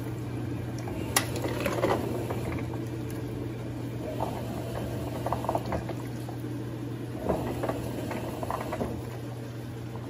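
Electrolux LTD06 top-loading washing machine taking in water for its rinse, with water splashing and trickling into the drum over a steady low hum.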